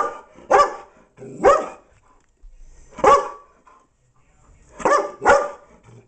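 A dog barking very loud, six sharp barks with uneven gaps, two of them close together near the end.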